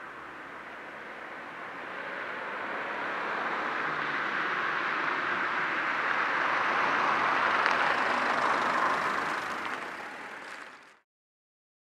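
A car approaching along the street, its noise building steadily to a peak about eight seconds in and easing slightly before it cuts off suddenly near the end.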